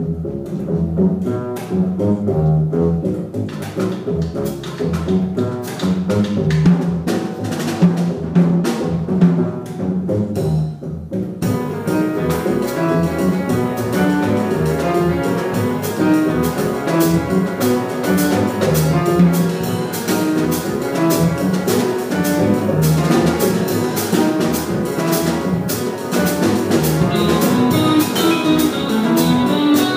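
Small jazz group playing: double bass and drum kit with guitar and piano, the cymbals filling in about a third of the way through. Near the end a vibraphone comes in with ringing metal-bar notes.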